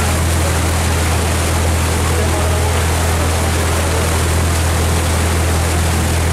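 Motorboat engine running steadily at speed: a constant low hum under a rushing wash of water and wind.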